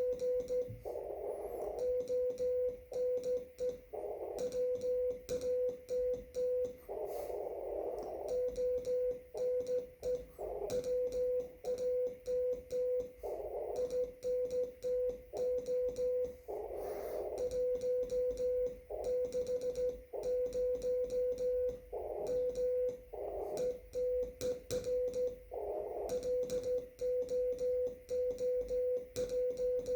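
Morse code on a shortwave receiver: a steady CW tone of about 500 Hz keyed on and off in dots and dashes, with band hiss rising in the pauses between characters and words. Faint clicks keep time with the keying.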